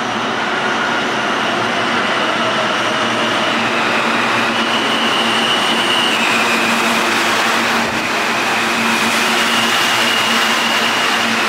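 An R160 subway train pulling into the station and slowing along the platform. A loud, steady rush of wheel and rail noise grows over the first couple of seconds. High electric whining tones from the propulsion shift in pitch in steps as it brakes.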